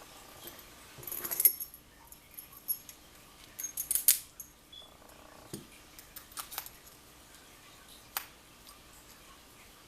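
Scattered metal clicks and clinks of a Best SFIC padlock and its keys being handled as the removable core is fitted back into the padlock, with the loudest clinks about a second and a half and four seconds in.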